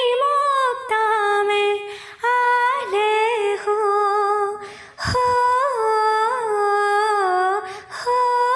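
A high solo voice humming the tune of a Hindi devotional song (bhajan) without words, in several held phrases with short breaks between them and small wavering turns in the melody.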